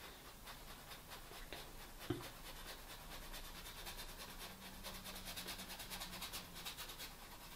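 Faint scratchy rasp of a small paintbrush dragged repeatedly downward over canvas, a few quick strokes a second. A brief soft knock about two seconds in.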